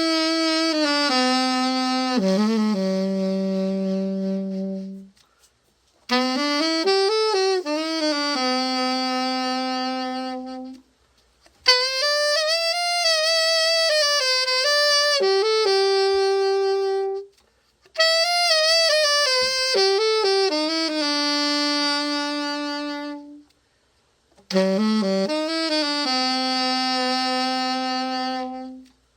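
Martin alto saxophone played in five short phrases, each a few moving notes that settle on a long held note, with brief silences between them.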